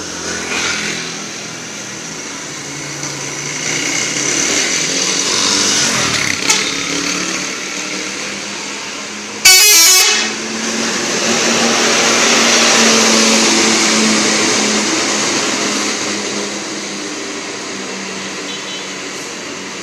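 Telolet bus horn, a multi-tone air horn, sounding its chiming tune over the bus's engine noise. A sudden, very loud blast lasting under a second comes about halfway through.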